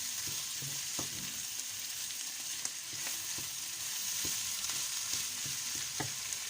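Half-cooked rice and vegetables sizzling as they fry in a pan, with the stirring utensil scraping and knocking lightly against the pan every so often.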